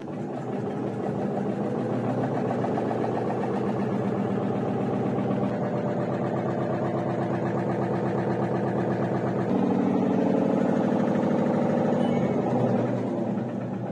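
A motor running steadily with an even mechanical hum, a little louder from about two-thirds of the way through.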